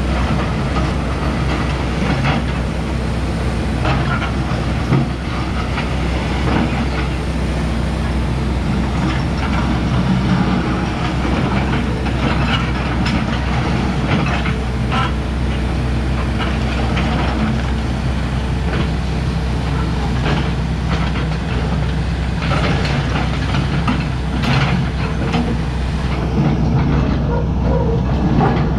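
Hitachi Zaxis 250LC-6 excavator's diesel engine running steadily, with repeated irregular crunches and crashes of a building being torn down.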